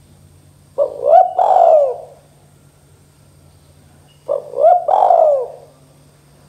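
Spotted dove cooing twice, about three and a half seconds apart. Each phrase is a short note, a rising note and a longer falling note.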